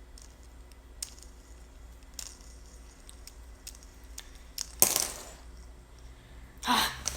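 Scattered small plastic clicks and rattles as Lego pieces of a homemade fidget spinner are handled, with a louder clatter about five seconds in and another near the end.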